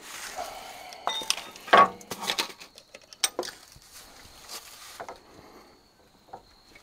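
Metal clinks and clanks of tools and parts being handled: a cluster of sharp knocks, the loudest about two seconds in, thinning to a few faint taps.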